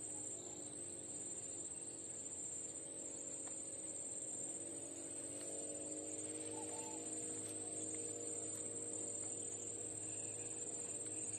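A steady, high-pitched insect drone from the riverside vegetation, holding one unbroken tone, with a faint low hum underneath.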